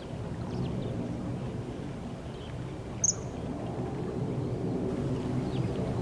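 Common kingfisher giving one short, sharp, high-pitched call about three seconds in, over a steady low background rumble.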